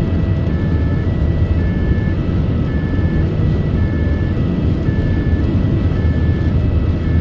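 Ambulance's two-tone emergency siren, switching between a higher and a lower note about every half second, heard from inside the cab over a loud low rumble of the moving vehicle.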